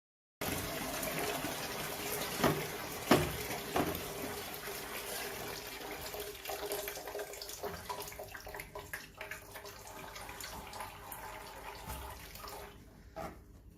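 Tap water running steadily into a basin, with a few sharp knocks a couple of seconds in; the water stops near the end.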